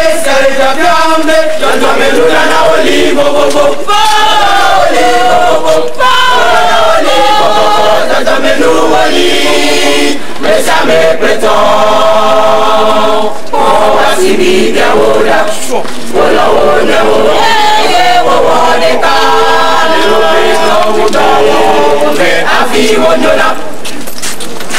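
A large choir singing, phrase after phrase, with short breaks between phrases.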